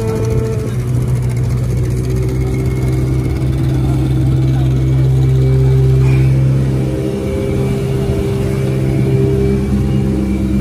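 Engine running steadily with a low hum, getting a little louder about halfway through and then settling back.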